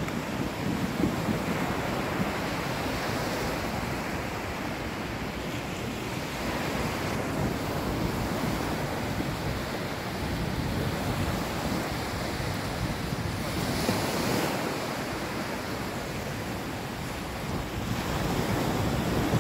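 Sea surf washing onto a sandy beach, with wind buffeting the microphone: a steady rushing noise that swells a little now and then.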